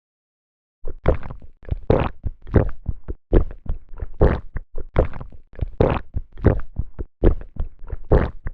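A fast, uneven run of dull thumps and knocks, about two or three a second, starting about a second in and going on to the end.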